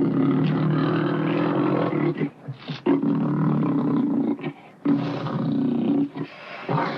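Persian leopard giving three long, rough calls, each lasting one and a half to two seconds, with short pauses between them.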